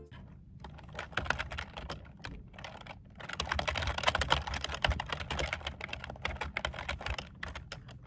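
Typing on a computer keyboard: a rapid run of key clicks, sparse at first and dense and continuous from about three seconds in.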